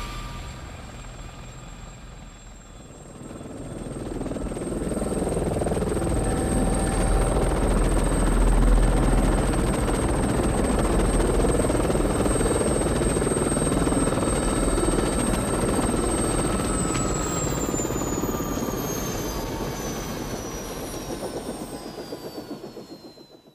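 French Army Gazelle helicopter: rotor and turbine noise swells up and holds steady and loud. Then the high turbine whine glides down in pitch and the sound fades, with slow rotor beats audible just before it ends.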